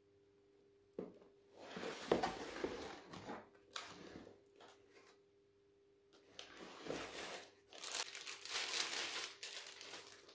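Plastic packaging wrap crinkling and rustling as parts are lifted out of a cardboard box, in two stretches: from about a second and a half in, and again from about six and a half seconds in.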